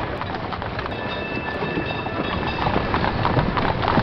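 Cable car rolling along its street rails with a rumbling clatter, a high steady tone for about a second and a half near the start, and horse hooves clopping on the pavement in the second half, growing louder.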